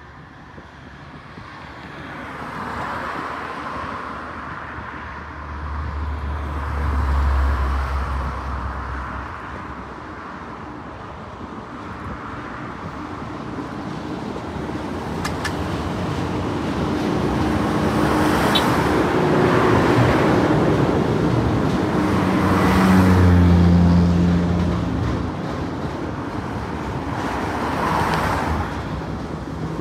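TasRail TR-class diesel-electric locomotives hauling a container freight train, their engines droning louder as they approach and pass beneath, loudest about two-thirds of the way through. Near the end this gives way to the steady rumble of the container wagons rolling by.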